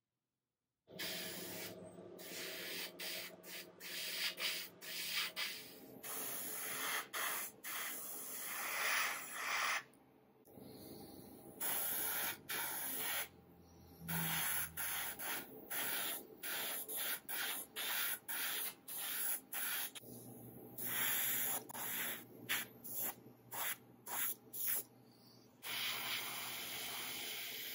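Siphon-feed airbrush spraying paint: a hiss of air and paint that starts about a second in and is cut off and restarted many times in short spurts as the trigger is worked.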